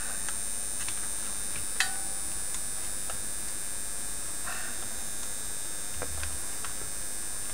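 Desoldering gun working on a switch's solder joints: a steady high hiss, with a few light ticks and one sharper click about two seconds in.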